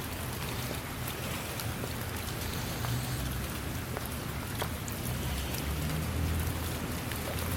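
Steady rain falling, an even hiss with scattered sharp drop ticks, over a low rumble.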